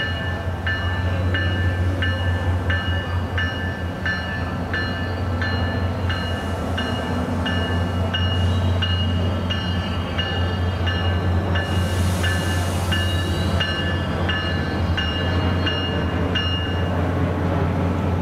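A railroad warning bell ringing at a steady pace, about three strokes every two seconds, over the low rumble of a SunRail commuter train rolling slowly into the station; the bell stops near the end.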